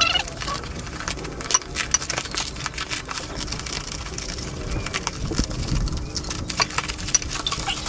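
Plastic packaging being handled and pulled off a boxed exhaust pipe: a steady run of irregular crinkles, crackles and small taps.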